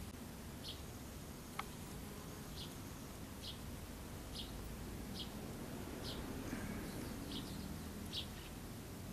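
A small bird repeating a short, high chirp about once a second over a steady low background rumble, with one brief falling whistle about one and a half seconds in.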